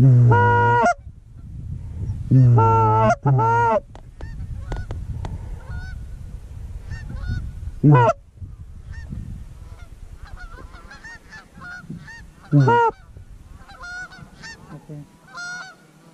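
Geese honking: a burst of loud, close honks in quick succession in the first few seconds, then single loud honks about 8 and 12.5 seconds in, over steady fainter honking from a flock farther off.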